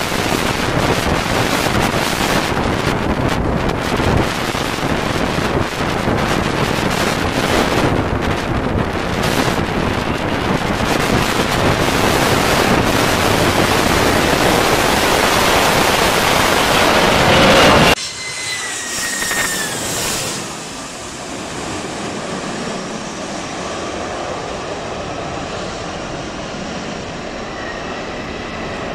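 Jet airliner engines at high thrust during go-arounds, heavily buffeted by strong wind on the microphone, with a whine rising to a peak until an abrupt cut about two-thirds through. After the cut the jet noise is quieter and steadier, with a falling whine at first.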